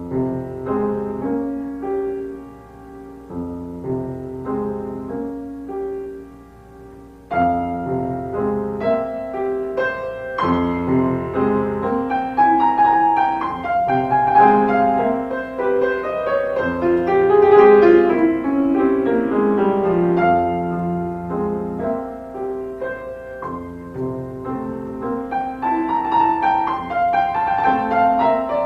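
Background piano music that grows fuller and louder about seven seconds in.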